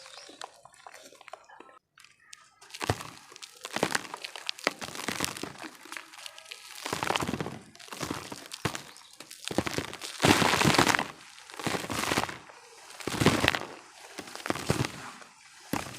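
Chunks of red dirt being crushed and crumbling apart, a series of cracking crunches. The crunching starts about two and a half seconds in after a few faint clicks, and comes in repeated bursts, loudest about two thirds of the way through.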